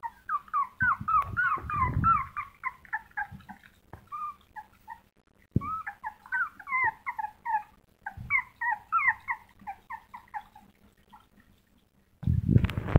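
Puppies whimpering in many short, quick high squeaks, coming in several runs with brief pauses between them. A few soft knocks and a louder rustle come near the end.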